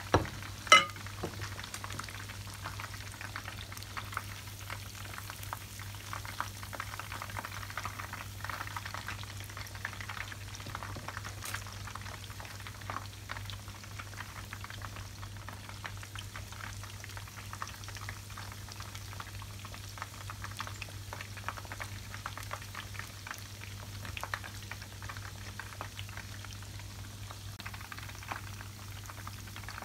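Food deep-frying in hot oil: a steady dense crackle and bubbling of the oil, with two sharp knocks right at the start and a steady low hum underneath.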